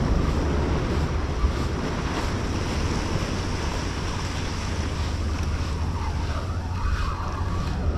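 Sea surf washing steadily, with wind buffeting the microphone in a low rumble.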